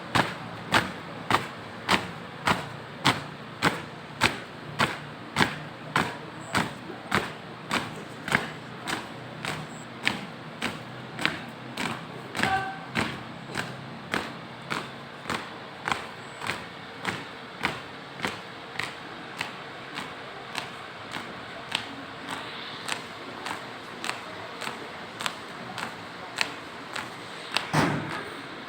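A flag-raising troop marching in step: boots striking the ground in unison in a steady rhythm, about one and a half steps a second, with a louder burst of sound near the end.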